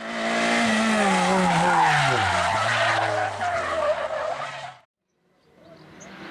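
Race car engine with tyre-skid noise, its engine note falling steadily in pitch over about two seconds and then holding low, cutting off suddenly about five seconds in. After a brief silence, a rally car's engine fades in as it approaches.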